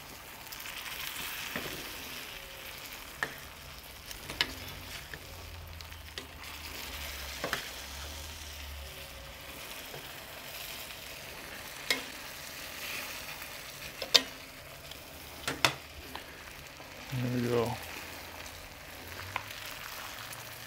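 Chicken thighs sizzling and frying in a bubbling honey, butter and soy glaze in a cast iron skillet over lump charcoal, the glaze hot enough that the cook suspects the butter was burning. A few sharp clicks of utensils against the skillet sound over the steady sizzle.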